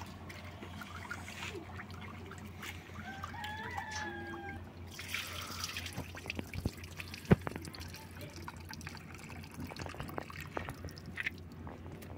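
Rinse water poured off a pot of split peas and splashing onto the ground, with drips and the wet peas rubbed and shifted by hand against the metal pot.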